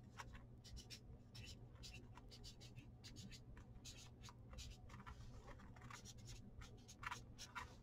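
Felt-tip marker writing on a paper pad: faint, quick scratchy strokes, coming a little thicker in the second half.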